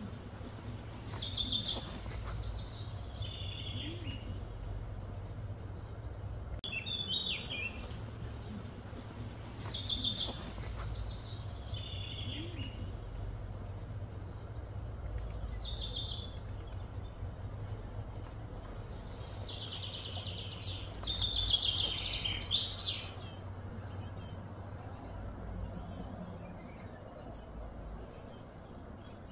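Wild birds chirping and singing in short repeated phrases every few seconds, with a louder, busier bout about two-thirds of the way through, over a steady low hum.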